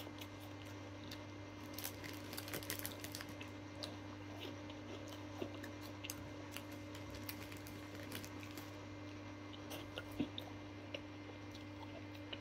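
A man chewing baked corn and chickpea puff snacks (Baked Wotsits): faint, small crunchy crackles, most frequent two to three seconds in and sparser afterwards, over a steady low hum.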